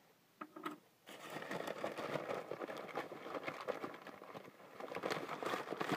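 Paper wrapping crinkling and rustling as it is pulled open by hand, a dense run of small crackles starting about a second in.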